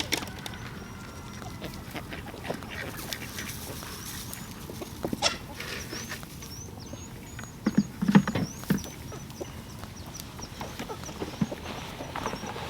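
Farmyard animal sounds close to the microphone: scattered knocks and rustles, loudest a little past the middle, with a short high chirp repeated about twice a second through the middle.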